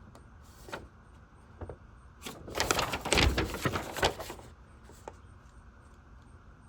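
Handling noise from the contents of a plastic model car kit: a few light clicks, then a couple of seconds of dense rustling in the middle, then quiet.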